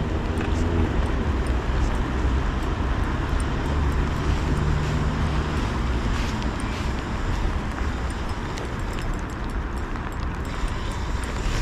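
Steady urban outdoor background: a low rumble of road traffic under an even hiss.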